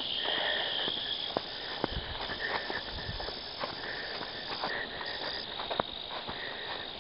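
A steady, high-pitched chorus of insects trilling, with the scattered soft steps and scuffs of someone walking.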